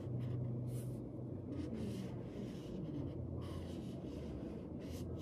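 Felt-tip marker rubbing on notebook paper in short colouring strokes, over a steady low hum.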